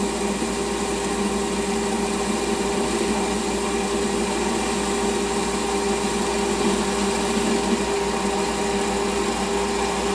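Small hobby metal lathe running steadily with a constant motor and gear hum, while the turning tool takes a light cut on a workpiece clamped off-centre in the chuck to turn an eccentric. The offset load makes the little lathe shake.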